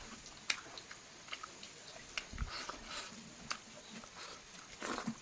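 Close-up chewing of chicken: irregular sharp, wet mouth clicks and smacks with short stretches of noisier chewing.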